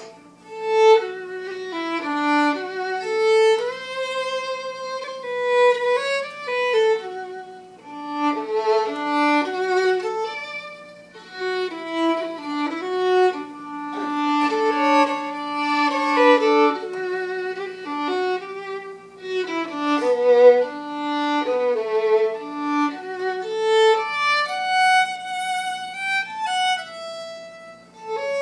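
Solo fiddle playing a tune unaccompanied: one bowed melody line moving from note to note, with short held notes between quicker runs.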